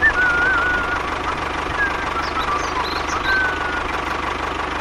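Tractor engine running steadily with a fast, even knocking rhythm, with birds whistling faintly over it.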